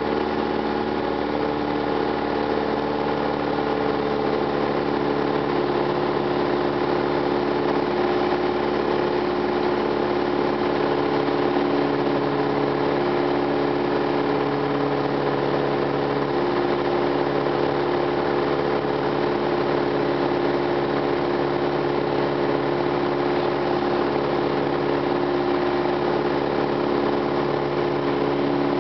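Piper Cherokee 140's four-cylinder Lycoming engine and propeller running steadily in flight, heard from inside the cockpit.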